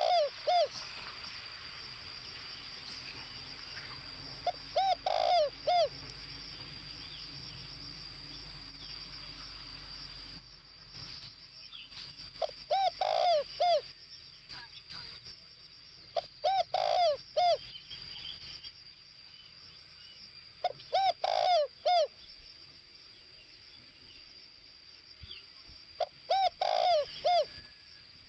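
Spotted dove cooing: six short phrases of three to five low coos, one every four to eight seconds, over a steady high buzz.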